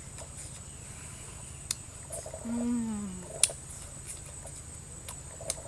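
A woman's closed-mouth "mmm" of enjoyment while eating grilled chicken: one short hum, falling in pitch, about halfway through. A few sharp clicks, the loudest just after the hum, and a steady high whine underneath.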